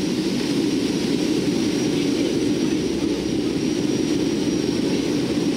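Steady drone of a Lockheed C-130T Hercules's four Allison T56 turboprop engines, heard inside the cargo hold, with a faint steady high whine over it.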